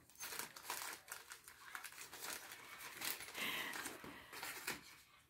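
Packaging crinkling and crackling in irregular bursts as a parcel is unwrapped by hand.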